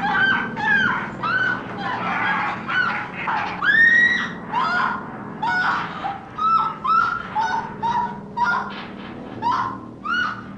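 Caged chickens squawking in a rapid run of short, shrill cries, two or three a second, each rising and then levelling off, over a faint low hum.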